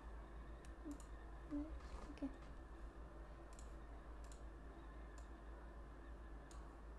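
Quiet computer mouse clicks, a handful spaced irregularly, over a faint steady low hum.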